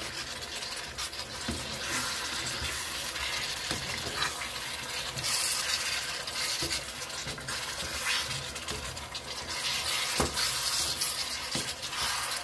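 Wooden spatula stirring and scraping chicken pieces and chopped tomatoes around a frying pan, with scattered clicks against the pan, over a steady frying sizzle.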